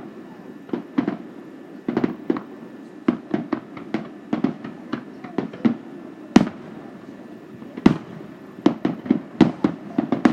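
Aerial fireworks bursting in an irregular series of sharp bangs and booms, a few close together, with the loudest single bang about six seconds in.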